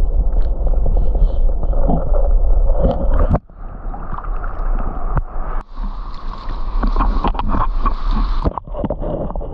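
Lake water gurgling and sloshing around a camera held in the water during a trout release, with a heavy low rumble; the sound shifts abruptly a few times.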